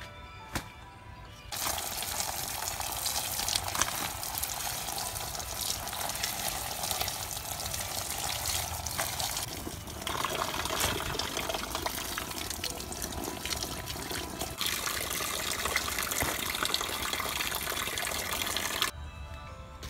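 Water pouring and splashing in a steady stream as freshly picked radish greens are rinsed by hand. It starts about a second and a half in, shifts in tone twice, and stops just before the end.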